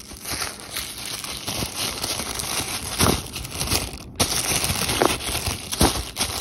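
Thin tissue paper crinkling and rustling as it is unfolded by hand, with irregular crackles and a short break about four seconds in.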